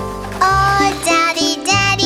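Children's song: a sung melody with long held notes over a steady bass line, the voice coming in about half a second in.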